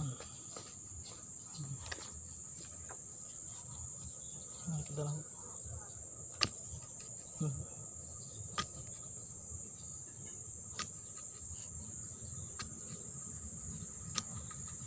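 Steady, high-pitched chirring of an insect chorus, crickets, in the background. A handful of sharp, short taps come in the second half, roughly two seconds apart.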